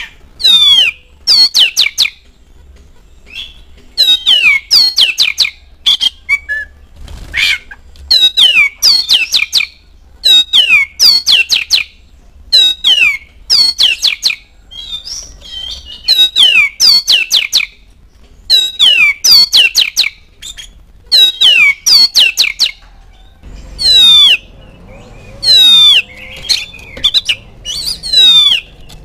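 Oriental magpie-robin (kacer) singing loudly: phrases of several quick whistles, each sweeping steeply down in pitch, repeated every second or two with short pauses between.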